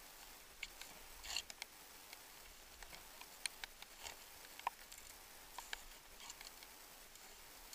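Canoe being paddled on calm water: scattered light ticks and drips of water at irregular intervals over a faint steady hiss.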